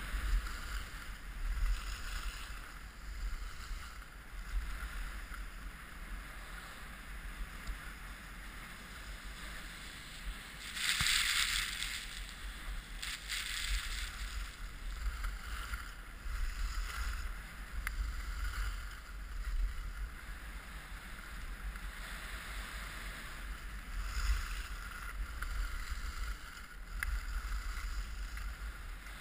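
Skis hissing and scraping over packed snow on a downhill run, with wind rumbling on the camera microphone. The scraping swells and fades with the turns, loudest in one longer scrape about eleven seconds in.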